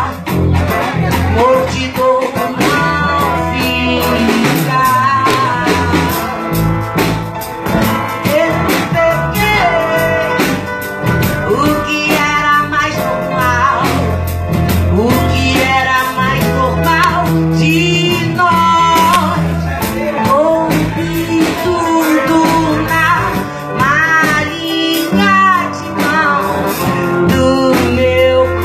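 A song playing: a singing voice over guitar, bass and a steady drum beat.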